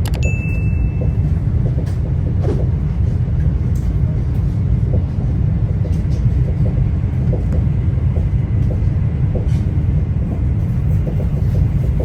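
Inside a moving passenger train: the steady low rumble of the carriage running along the track, with scattered faint clicks and knocks.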